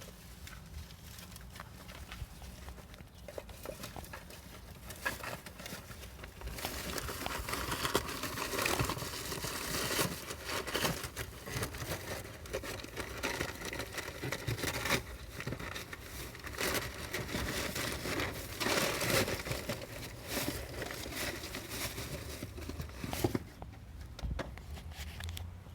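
Trash bags crinkling, rustling and tearing in irregular bursts as an animal rummages inside the garbage. The rustling picks up and gets louder about six seconds in, then drops away near the end.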